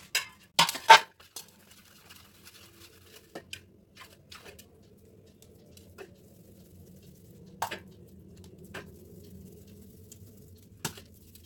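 Stainless steel bowl and plate knocking and tapping on the counter, loudest twice about a second in, then scattered light taps, with soft squishing as stiff dough is pulled apart and handled. A faint low hum runs underneath.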